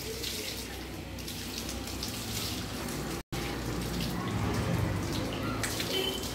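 Water running from a garden hose and splashing as it pours over a black Labrador's coat during a bath, steady throughout, with a brief dropout about halfway.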